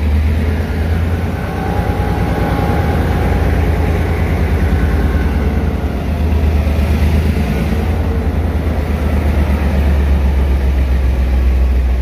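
Pakistan Railways diesel-electric locomotive's engine running at full throttle, a loud, steady, pulsing low rumble that swells and eases a little now and then.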